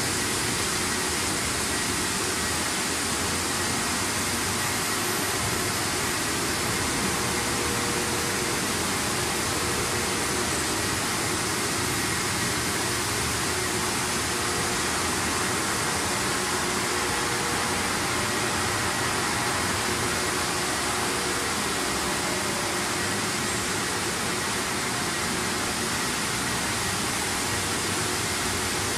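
Steady machine noise of a French fries production line running: motors, blower fans and water together make an even hiss, with a few faint steady whines.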